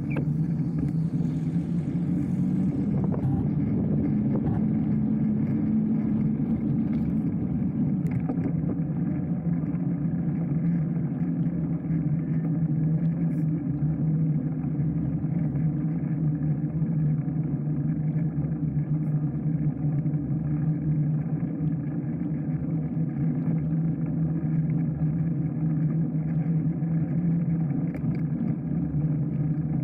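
Steady low rumble and hum of a bicycle rolling at an even speed, picked up by a bike-mounted camera: tyre and wind noise with no breaks.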